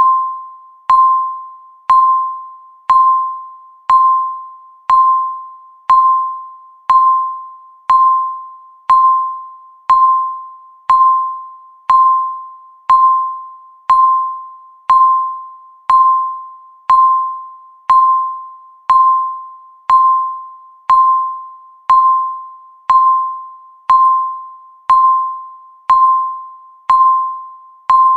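Countdown timer beep: a single clear electronic tone struck once every second, each one sharp at the start and fading away before the next.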